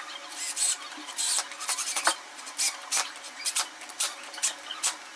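A screw being driven into a wall with a cordless drill, biting in with irregular bursts of scraping and grinding.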